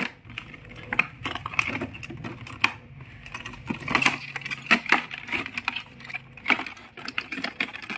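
Cardboard toy box and its plastic packaging being handled and opened, giving irregular crinkles, taps and clicks as a diecast toy car is slid out.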